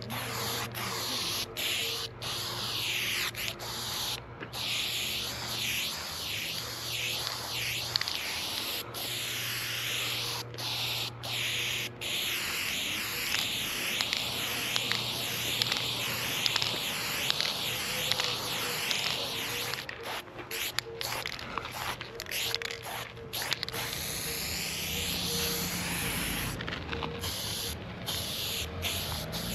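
Aerosol spray paint can hissing in long spray strokes, cut by brief pauses each time the nozzle is let go. The strokes turn shorter and choppier about two-thirds of the way in.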